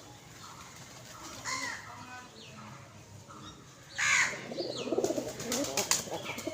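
Birds calling with short, curved calls, and a loud flurry of wing flapping starting about four seconds in.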